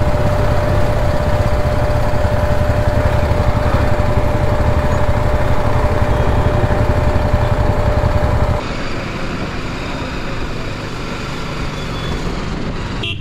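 Motorcycle riding along, heard from the bike: a steady low rumble of engine and road noise with a thin steady whine. About two-thirds of the way in it drops abruptly to a quieter run of engine and street noise.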